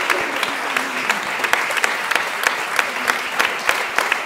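Audience applauding steadily, dense clapping, with a few voices mixed in.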